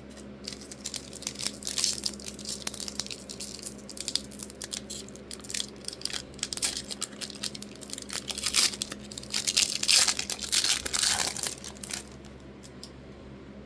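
Plastic trading-card pack wrapper being torn open and crinkled, a long run of irregular crackling and rustling that stops about twelve seconds in.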